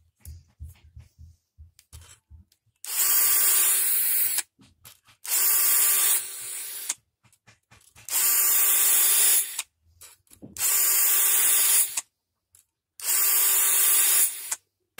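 A cordless drill spinning a round chainsaw file against the chain's cutters in five short bursts of about one and a half to two seconds each: a steady motor whine under the rasp of the file on the teeth. A few light clicks come before the first burst.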